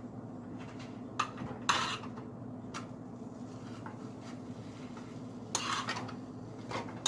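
Utensil clinking and scraping against a skillet and plate as cooked waffles are lifted out and plated: a few short clatters over a steady low hum.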